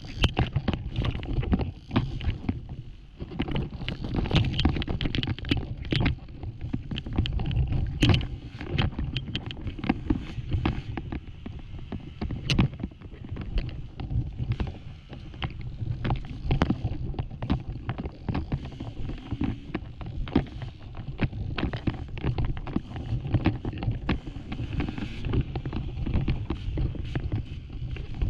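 Off-road dirt bike engine running hard through a race on loose, rocky trail, with frequent sharp knocks and clatter from rocks and the bike's chassis throughout.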